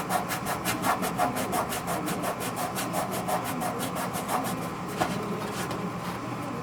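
Sandpaper rubbed rapidly back and forth against the inside of an aluminium wing spar, deburring the back side of rivet holes: about five strokes a second, slowing and thinning out after about four seconds.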